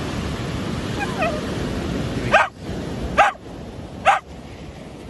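A dog barking, three short sharp barks about a second apart starting a little after halfway, over the steady wash of surf.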